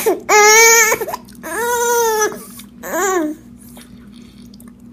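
Baby crying in three short wails, the last one falling in pitch: fussing because he wants his rag back.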